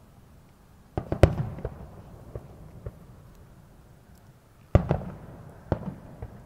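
Aerial firework shells bursting: two sharp booms close together about a second in, a few small pops after them, then two more booms a second apart near the end.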